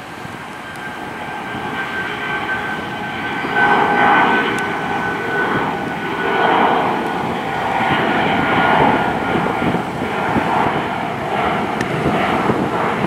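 Four-engine Airbus A340-600 with Rolls-Royce Trent 500 turbofans climbing out after takeoff. The jet rumble grows over the first few seconds, then stays loud, swelling and easing. A faint steady high whine runs through the first half.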